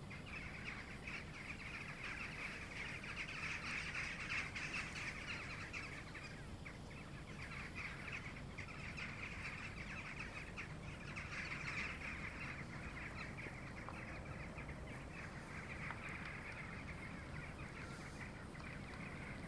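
A large flock of jackdaws calling in flight as they gather to roost, a dense overlapping chatter of short calls. It swells louder about four seconds in and again around eleven to twelve seconds.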